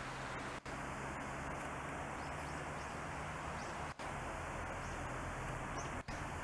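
Steady outdoor rushing noise, with a few faint, short, high bird chirps over it. The sound cuts out for an instant three times.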